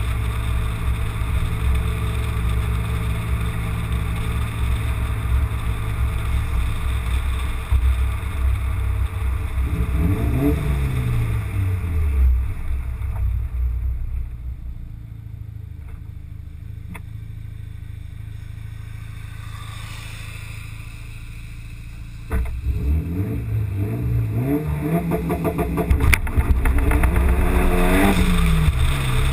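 Car engine and road and wind noise heard from a camera mounted on the outside of the car body. The revs rise and fall about a third of the way in, the sound drops to a quieter coast in the middle, then jumps back up about three-quarters in as the engine pulls hard with revs climbing and dropping through a gear change near the end.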